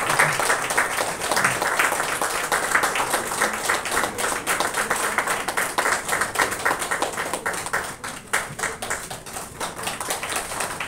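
Audience applauding, a dense patter of handclaps that thins briefly about eight seconds in and then picks up again.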